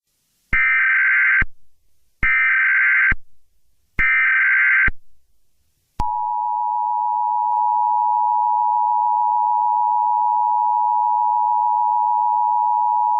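Emergency Alert System SAME header: three identical bursts of buzzing data tones, each under a second long and about a second apart. About six seconds in, the steady two-tone EAS attention signal begins and holds.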